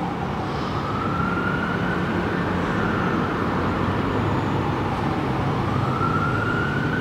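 Emergency-vehicle siren wailing, one tone rising and falling slowly, rising about a second in, falling midway and rising again near the end, over a steady low rumble.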